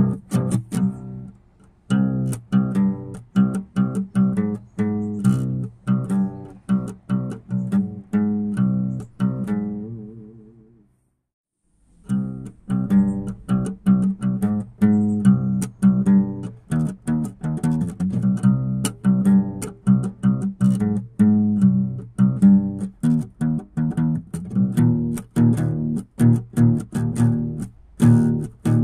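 Instrumental background music of rapidly plucked low strings. It fades out about ten seconds in, drops to silence for about a second, then starts again.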